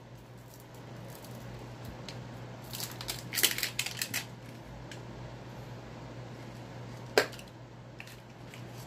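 Hands handling a vape pen and its packaging: a cluster of small clicks and rustles about three seconds in, then a single sharp click about seven seconds in.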